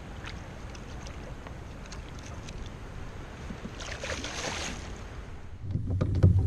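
Kayak on the river: water lapping at the hull with small knocks and clicks, and a brief splashing hiss about four seconds in. Near the end a loud low rumble starts.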